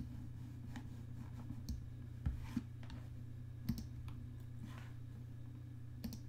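Several faint computer mouse clicks, irregularly spaced, over a steady low hum.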